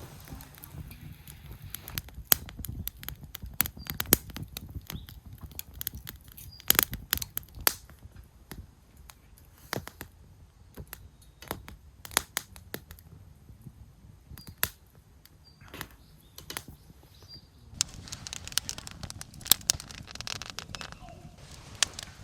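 Wood campfire crackling, with irregular sharp pops over a low rumble. A denser rustling hiss comes in near the end.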